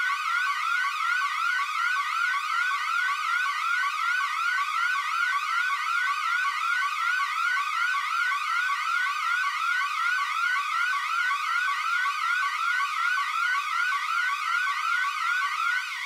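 Electronic emergency-alert siren tone: a quick rising sweep repeated steadily a few times a second, like a fast yelp siren.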